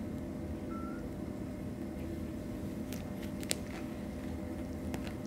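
A kitten biting and clawing at a knitted sock, making faint scratches and small ticks, with one sharper tick about three and a half seconds in, over a steady low hum.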